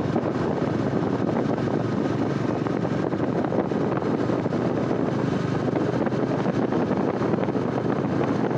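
Bajaj Dominar 400's single-cylinder engine and exhaust running steadily while the motorcycle is ridden along, with wind noise on the microphone.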